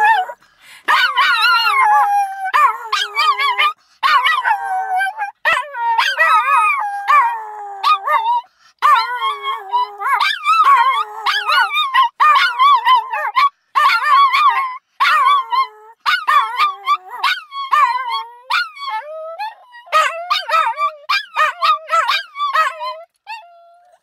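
Small chihuahua–pinscher mix dog howling over and over in wavering, high-pitched howls with short breaks between them, the pitch sliding up and down. A second small dog's shrill howling joins in the background. The howls die away near the end.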